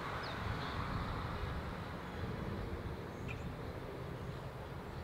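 Steady outdoor background noise, a low rumble and hiss, with a couple of faint short high chirps.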